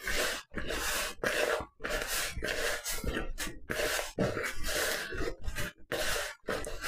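Hand mixing soft scone dough in a plastic mixing bowl: a run of short rustling, squelching strokes, about one to two a second.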